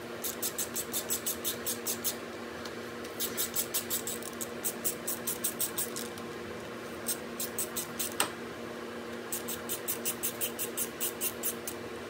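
Hand ratchet with a T27 Torx bit clicking in quick runs of about seven clicks a second, in four spells with short pauses, as the bolts holding the timing chain tensioner are backed out. One sharper click comes about eight seconds in, over a steady background hum.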